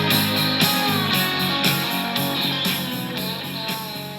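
Rock music with guitar and a steady beat, fading out over the last couple of seconds.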